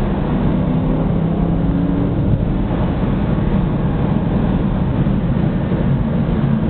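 2003 Ford Mustang GT's 4.6-litre V8 through a 2.5-inch Flowmaster cat-back exhaust with an X-pipe, running at a steady engine speed under road and tyre noise.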